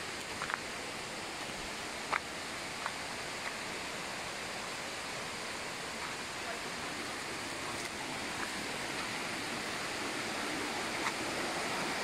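Steady rushing of a jungle stream flowing over boulders below a waterfall, growing slightly louder near the end, with a few faint clicks in the first few seconds.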